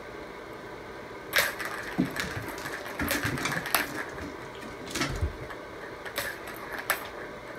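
Plastic balls clicking and rattling around the tracks of a three-tier cat tower track toy as a cat bats at them with its paw, in irregular short bursts several times.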